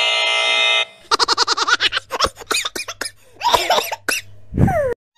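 Wrong-answer buzzer sound effect held on one steady tone, cutting off about a second in. Then a cartoonish laughing sound effect follows in rapid pulses that bend up and down, ending in a falling glide.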